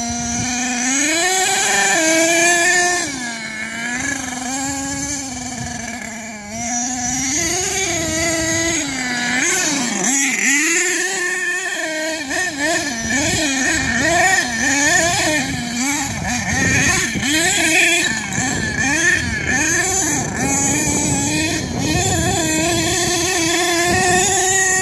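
HPI Savage X 4.6 nitro RC monster truck's small two-stroke nitro engine running hard, its pitch rising and falling again and again as the throttle is opened and closed.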